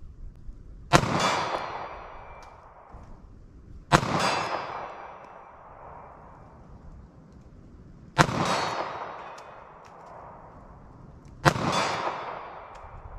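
.380 ACP pocket pistol fired four times, slowly and evenly spaced about three to four seconds apart. Each shot is followed by a long fading tail.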